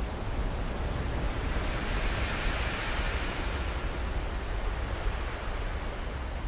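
Ocean surf: a steady rush of waves with a low rumble beneath, swelling once in the middle.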